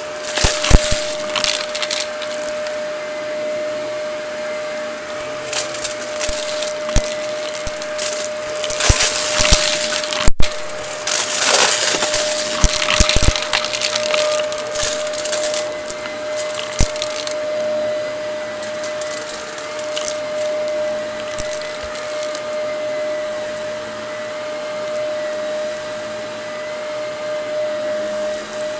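Shark upright vacuum cleaner running steadily over carpet, with a constant motor whine. Sharp clicks and crackles come and go as crumbs and small debris are sucked up and rattle through the cleaner, thick in the first half and thinning out later.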